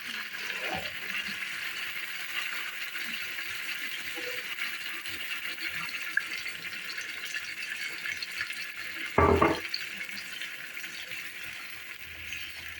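Water poured into a pot of browned mutton and masala, with a steady hiss from the pot. There is a single knock about nine seconds in.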